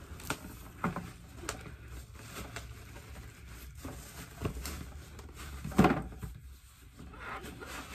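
Cardboard box being handled and opened: scattered light taps, scrapes and rustles, the loudest about six seconds in.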